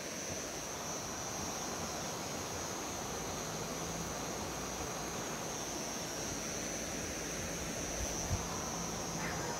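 A steady, high-pitched chorus of night insects over an even background hiss, with one soft knock near the end.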